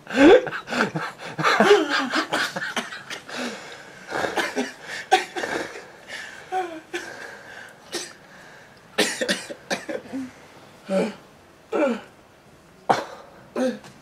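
People laughing hard in breathless, wheezing fits: a dense, loud burst at the start, then separate short gasping bursts with pauses between them.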